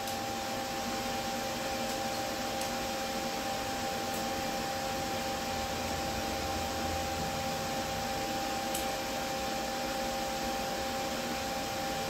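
Steady whirring hiss with a faint two-note hum, like a fan or blower running, and a few faint clicks as a door latch mechanism is worked by hand.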